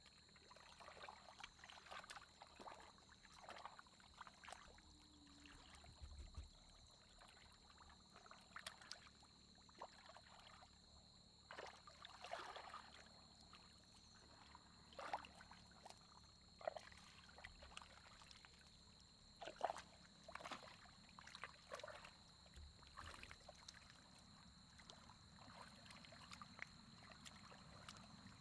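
Faint, irregular splashing and sloshing of hands groping through shallow muddy water, feeling for fish.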